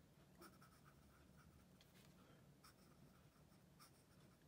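Faint scratching of a Montblanc Meisterstück 146 fountain pen's fine nib writing cursive on Rhodia paper, in short uneven strokes.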